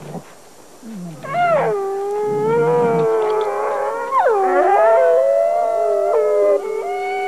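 Gray wolves howling. A long howl slides down in pitch and then holds steady; about four seconds in a second howl swoops up and down over it, and near the end two howls at different pitches sound together. This is the call wolves use to assemble the pack.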